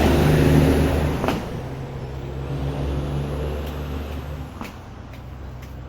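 Car engine running with a blown muffler: a loud, deep exhaust rumble that drops in level about a second in and keeps running lower.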